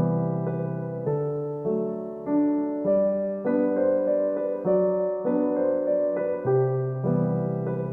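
Background music: a gentle piano melody, notes changing about every half second over sustained chords.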